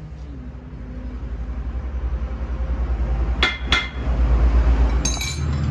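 Two sharp hammer blows on a steel truck rim, about midway and a third of a second apart, over a low, pulsing machine drone that grows steadily louder. A brief metallic rattle comes near the end.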